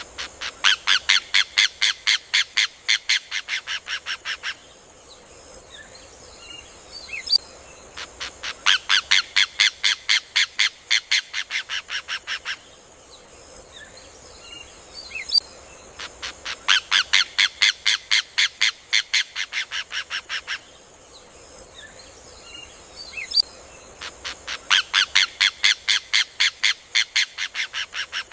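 Rufous hornero (João-de-barro) song: four bouts of loud, rapid, evenly repeated notes, each lasting about four seconds and tapering slightly toward its end, coming roughly every eight seconds.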